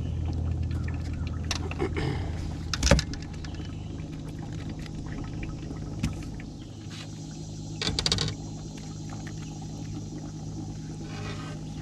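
Steady low mechanical hum aboard a fishing boat, with two sharp knocks, one about three seconds in and a louder pair near eight seconds.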